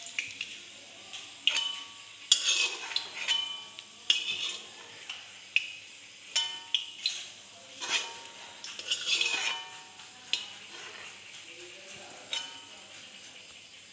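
Steel ladle clanking and scraping against a wok and a steel plate while fried food is lifted out of hot oil, with the oil sizzling faintly. The clanks come irregularly, a dozen or so, several ringing briefly.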